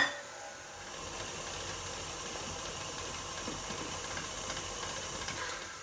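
Electric mixer running steadily, blending flour into cookie dough, after a knock against the bowl at the start; it winds down near the end.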